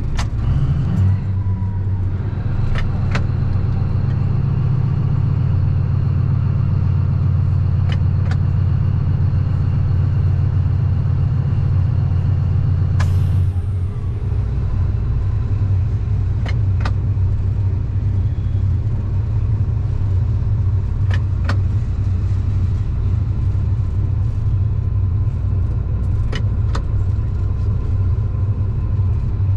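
A vehicle running with a steady deep drone that shifts in tone about 13 seconds in, with a few sharp clicks scattered through it.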